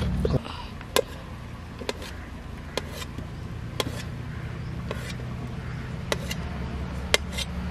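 Knife slicing through a block of soft homemade paneer and tapping down on the cutting board, short sharp knocks about once a second, some in quick pairs, over a steady low hum.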